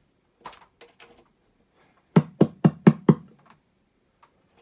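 A microphone plugged into an Otari MX-5050 reel-to-reel being tapped: a few light taps, then a quick run of five dull, evenly spaced knocks, about four a second, driving the deck's peak lights.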